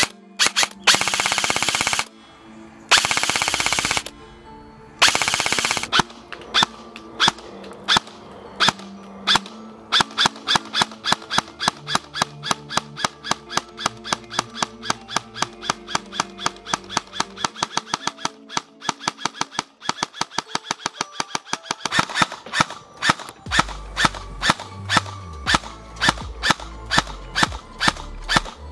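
Evolution Airsoft Reaper XS electric airsoft gun (AEG) firing three full-auto bursts of about a second each, then music with a quick, steady beat.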